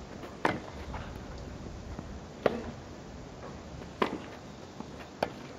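Tennis ball struck by rackets in a rally on grass: four sharp hits, about one and a half to two seconds apart.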